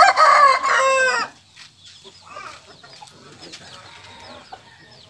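A rooster crowing loudly, the crow breaking off about a second in, followed by quieter scattered sounds.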